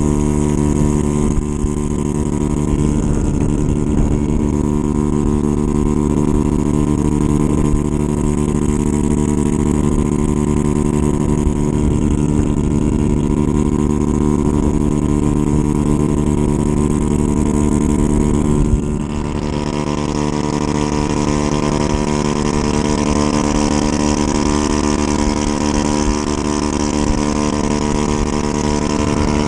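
Honda Ruckus scooter's engine running at steady cruising revs at road speed, with wind rushing over the microphone. About two-thirds of the way through the sound dips for a moment, then the wind noise comes back stronger and brighter.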